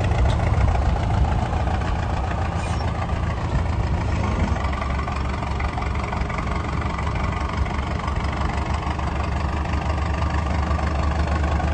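Large truck engine idling steadily with a low, even rumble.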